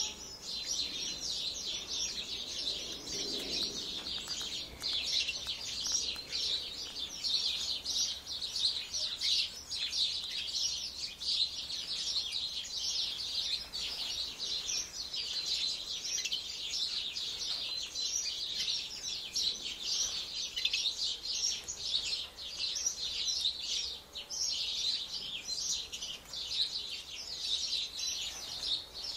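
A flock of small aviary birds, budgerigars among them, chirping and chattering continuously, many calls overlapping into a dense high-pitched chorus.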